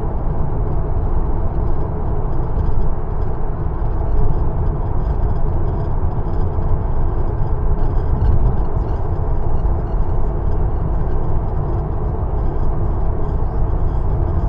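Steady road and engine rumble heard inside the cab of a Ford Transit Custom Nugget campervan on the move, loud and even throughout.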